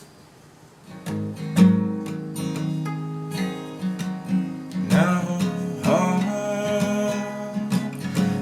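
Song intro on guitar: plucked and strummed chords that come in about a second in and grow fuller about five seconds in.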